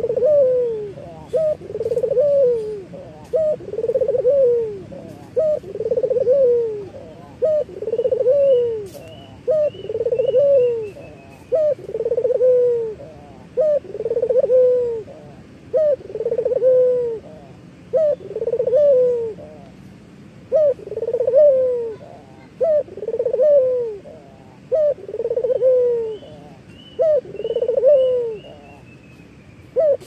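Barbary dove (puter lokal) cooing in its perch display, a rolling coo that rises and falls, repeated steadily about every two seconds, some fifteen times. A faint higher chirping from another bird comes in twice, about a third of the way in and again near the end.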